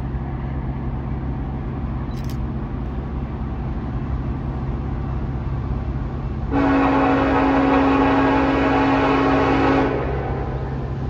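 Air horn of an approaching Union Pacific SD70AH diesel locomotive sounding one long blast of about three seconds, starting about six and a half seconds in, over a steady low rumble from the oncoming train.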